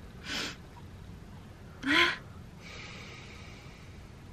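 A woman crying: a soft breath near the start, then about two seconds in a sharp gasp that breaks into a short sob with her voice in it, followed by a longer, quieter breath out.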